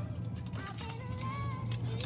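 Background music with a singing voice over a steady low hum.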